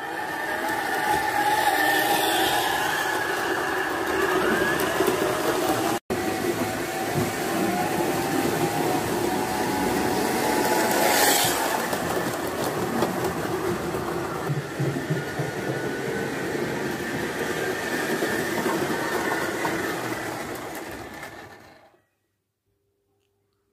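Gauge 1 model steam locomotive and coaches running on the track: a steady whine of electric motor and gearing, mixed with the rolling noise of the wheels. It fades in at the start, cuts out for an instant about six seconds in, and stops suddenly near the end.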